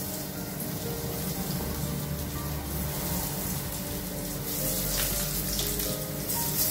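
Hot oil sizzling in a stainless steel frying pan as breaded chicken nuggets are dropped in one at a time, the hiss growing brighter in the last couple of seconds as more go in. Background music plays underneath.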